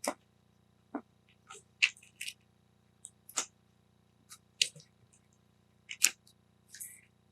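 Comic books being handled and shuffled: a string of short, irregular rustles and light taps.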